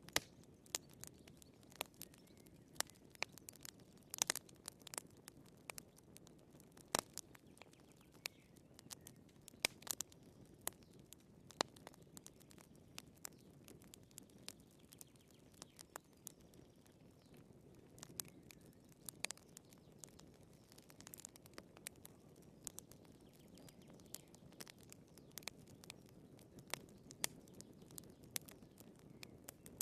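Firewood burning in a fireplace, crackling: irregular sharp pops and snaps, some louder than others, over a soft, steady, low burning noise.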